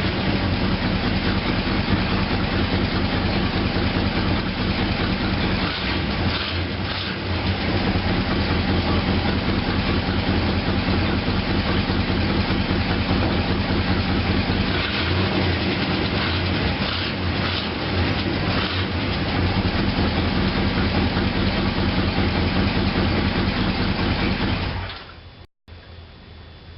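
1966 Mercury Park Lane's 390 V8 running grumpy on a cold start without choke, with an exhaust leak in its note. The sound cuts off suddenly near the end.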